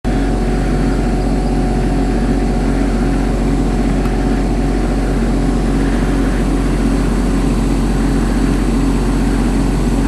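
A machine engine running steadily at a constant speed, with an even, unchanging drone.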